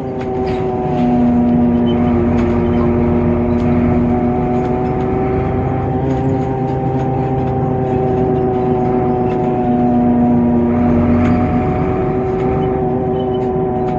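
Temsa Avenue LF bus's DAF PR 228 six-cylinder diesel and driveline running under way at a steady speed, with a whining tone that holds nearly level in pitch. This is the high-pitched DAF sound that the owner calls a strange sound.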